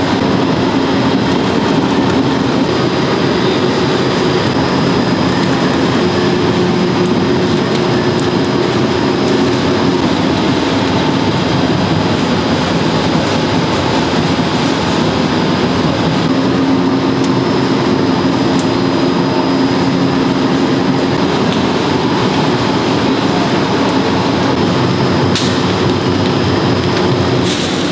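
Two-roll rubber mill running steadily and loudly, a constant mechanical drone as silicone compound is worked between its steel rolls, with a few light clicks near the end.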